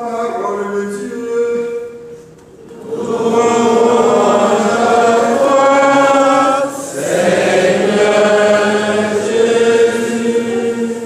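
Choir chanting in long held notes, with a brief dip about two and a half seconds in, then fuller and louder singing.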